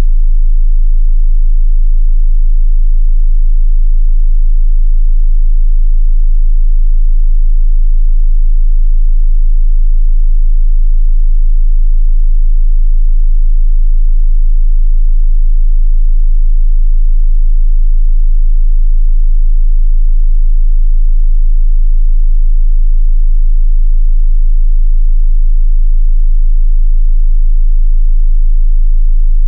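A continuous 27 Hz sine-wave test tone: one very deep, steady, loud bass hum that does not change.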